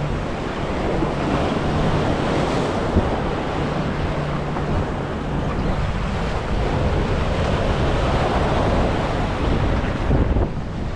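Wind buffeting the microphone over the steady wash of surf. A faint low hum sits underneath, strongest in the first few seconds.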